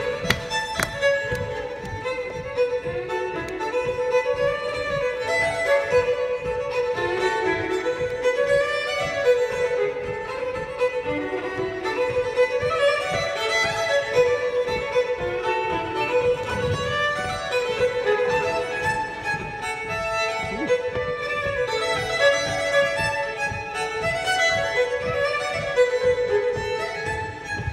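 Solo fiddle playing a fast reel, with a steady low tapping under the tune keeping time.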